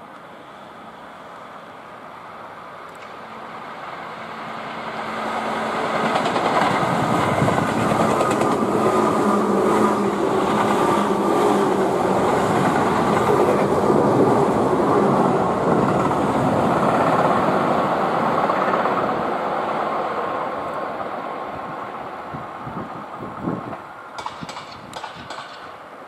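Tobu 10030 series electric commuter train running past at speed: wheel and track noise swells up, stays loud for about twelve seconds, then fades away. A few sharp clicks near the end.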